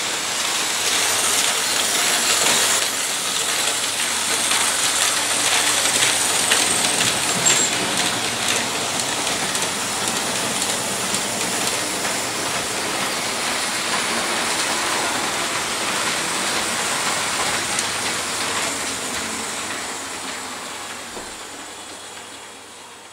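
Small plastic model-coal granules rattling down a Faller conveyor belt and coal-loading chute into Märklin model hopper wagons, with the wagons rolling on the track beneath. A steady, rain-like patter that fades away near the end.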